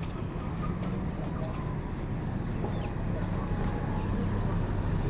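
Street ambience of motorbike traffic: a steady low engine hum, with a short high chirp about two and a half seconds in.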